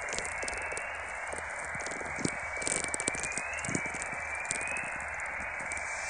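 Natural very-low-frequency radio emissions from the Halley VLF receiver in the Antarctic, converted to sound: steady plasmaspheric hiss, with short rising chorus tones about once a second and scattered crackling clicks of sferics from distant lightning.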